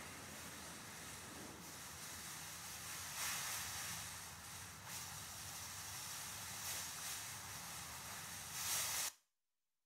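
Steady hiss of noise that swells briefly several times and cuts off abruptly near the end.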